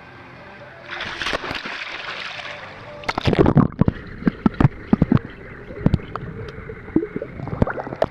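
Pool water splashing for about two seconds. Then a series of irregular, muffled knocks and bubbling as the camera is held underwater, with a monkey's hands close by in the water.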